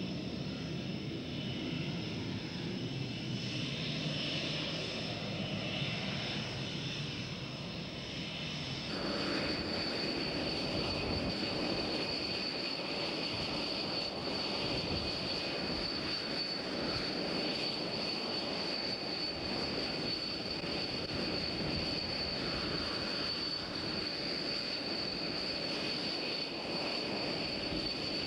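Panavia Tornado's twin RB199 jet engines running on the ground: a steady high-pitched whine over a rushing noise. About nine seconds in the sound changes abruptly, and the whine then holds slightly lower and steadier.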